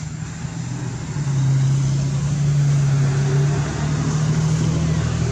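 An engine running steadily with a low hum, getting louder about a second in.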